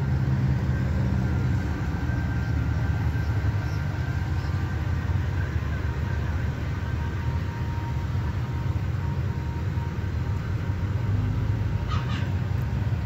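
A motor vehicle engine idling steadily, a low, even drone.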